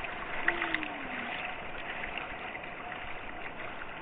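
River water rushing and churning steadily around an inner tube, with a few sharp clicks and a brief low sound falling in pitch about half a second in.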